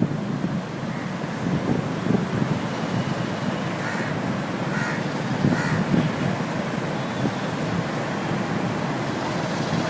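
A crow cawing three times, about four to six seconds in, over a steady background noise.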